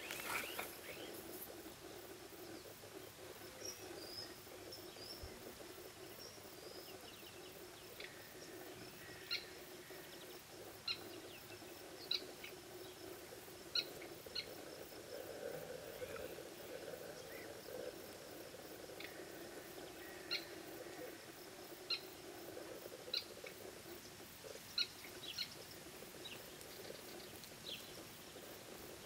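Short, high bird chirps, coming singly every second or two, over a steady low background hum.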